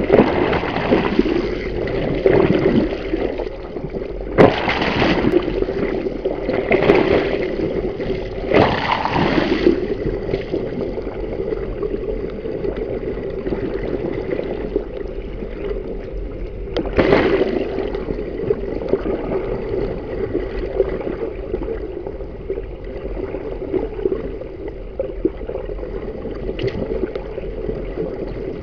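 Water rushing past an underwater camera pushed through the bow wave of a boat under way at about 5 knots, with a steady hum beneath it. Several louder gushes come in the first ten seconds and one more about halfway through.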